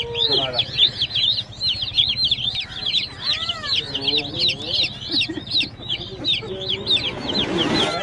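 A flock of young chicken chicks peeping nonstop: rapid, overlapping, short high-pitched peeps that fall in pitch, with some lower calls mixed in around the middle and a short burst of noise near the end.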